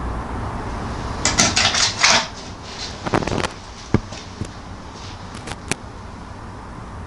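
A rusty, cut-out steel A-pillar section from a classic Mini being handled and laid down on a concrete floor: scraping and rattling of corroded sheet metal in two spells, followed by a few sharp clicks.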